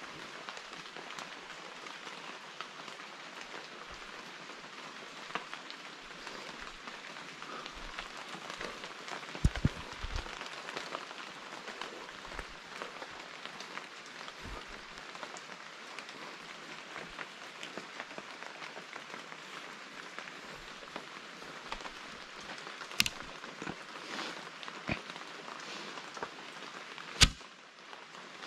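Steady pattering of rain on forest foliage, with scattered sharper clicks and knocks; three stand out, about ten, twenty-three and twenty-seven seconds in.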